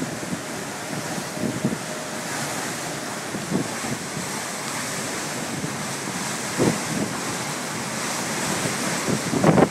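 Wind blowing steadily, with a few brief gusts buffeting the microphone.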